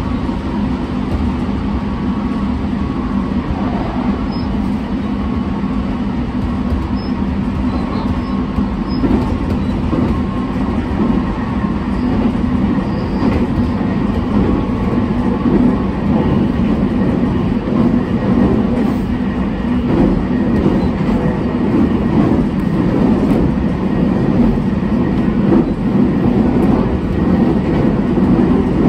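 JR Shikoku 6000 series electric train with Toshiba GTO inverter running, heard from inside the car: a steady rumble of wheels on rail and running gear, gradually getting a little louder.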